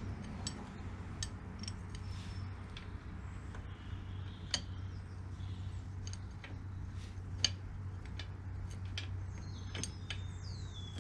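Scattered light metallic clicks and taps of a spanner and nut against an outboard's lower engine-mount bolt as the nut is fiddled into place, two of them louder, over a steady low hum. A bird chirps near the end.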